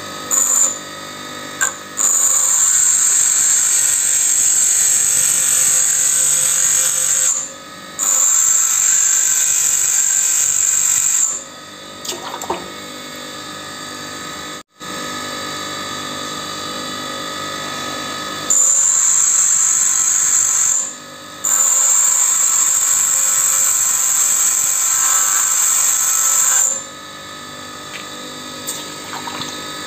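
REX bench grinder running with a steady motor hum while a lathe tool bit is pressed against the grinding wheel, giving a loud high grinding sound in four passes of a few seconds each, in two pairs. The passes grind the tool's side clearance angle.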